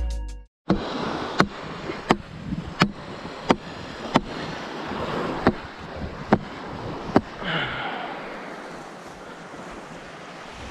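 Surf washing on the beach with wind on the microphone, under a run of sharp clicks about every 0.7 s for the first several seconds.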